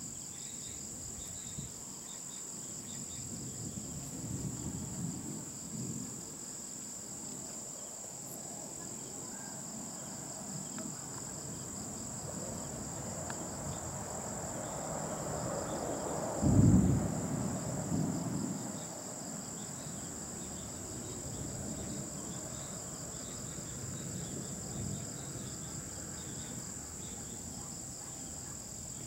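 Night insects, crickets among them, keep up a steady high-pitched chirring. About twelve seconds in, a low rumble of thunder builds, is loudest around seventeen seconds with a second swell just after, and rolls away over the next few seconds.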